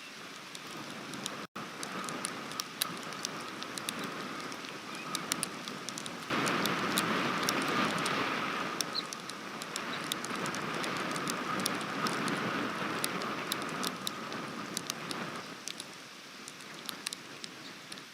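Steady rain, with individual drops ticking close to the microphone; it gets suddenly heavier about six seconds in and eases again near the end.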